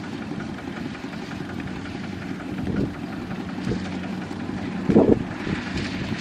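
Two-wheel walking tractor's single-cylinder diesel engine running steadily, with wind on the microphone. There is a loud thump about five seconds in.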